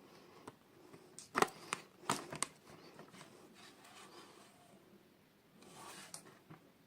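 Small toy packaging being handled and opened by hand: a quick cluster of sharp plastic clicks and snaps, then a short rustle near the end.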